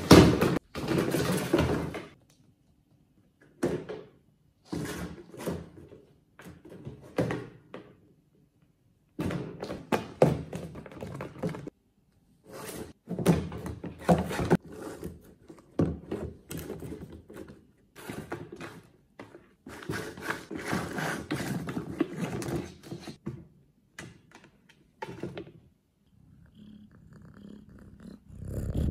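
Clear plastic box with a ping pong ball inside, knocked and shoved across a wooden floor by two cats' paws: irregular bursts of hollow plastic thunks and rattles, loudest at the start, with a few short silent pauses.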